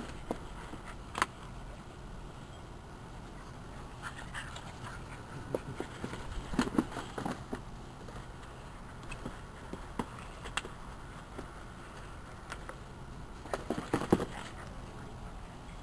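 Scattered light scrapes and knocks over a steady low background. They bunch together about six to seven seconds in and again near the end.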